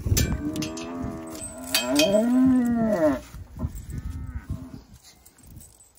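Heifer in labour bellowing twice, two long moos of about a second and a half each that rise and then fall in pitch, as her calf is pulled out with obstetric chains.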